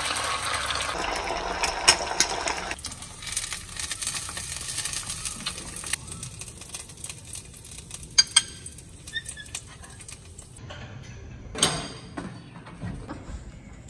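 An egg frying in oil in a stainless pan, sizzling for the first few seconds, then quieter kitchen sounds with a few sharp clicks and knocks, a pair about eight seconds in and one more near the end.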